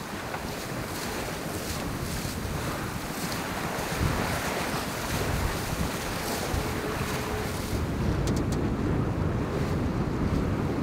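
Wind buffeting the microphone over the rush of water along a sailboat's hull as it sails upwind in a strong breeze of around 20 knots. The noise grows louder about four seconds in.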